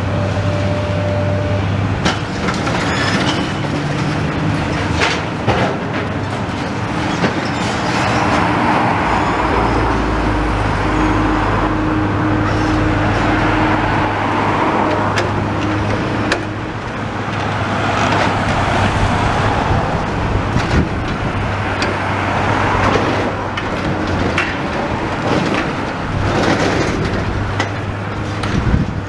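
Demolition excavator's diesel engine running steadily under load, with scattered clanks and crunches as its grab pulls at the roof steelwork and brick wall.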